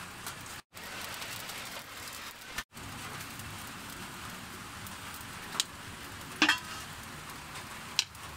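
Steady hiss of rain, with a wood fire burning under a cooking pot. The sound drops out briefly twice in the first three seconds, and three sharp clicks come in the second half.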